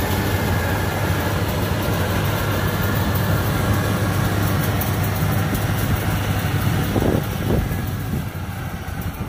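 Yanmar AW82V combine harvester running steadily, a low engine hum with a faint whine above it; two short rising sweeps sound about seven seconds in.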